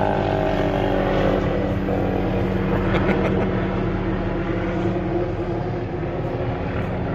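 Sheriff's department search aircraft passing overhead: a steady engine drone, with its higher tones sliding down in pitch over the first two seconds as it goes by.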